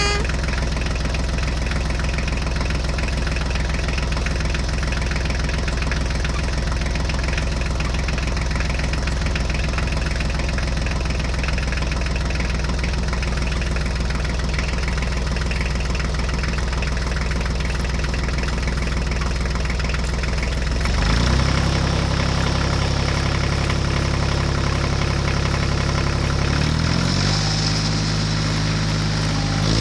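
Heavy vehicle engine idling steadily, then revving up about two-thirds of the way in and climbing higher again shortly before the end, as if taking up load.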